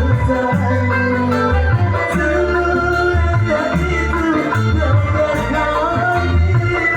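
Dangdut band playing an instrumental passage, with a steady bass line under a gliding lead melody.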